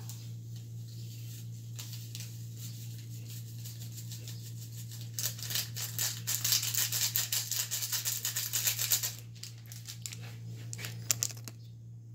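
Instant-noodle seasoning sachet being shaken over a saucepan: a rapid dry rattle of packet and granules for about four seconds in the middle, with a brief flick later. A steady low hum runs underneath.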